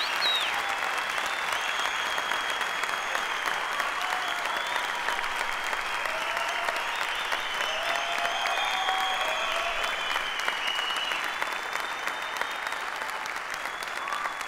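Large theatre audience applauding steadily, easing off slightly near the end.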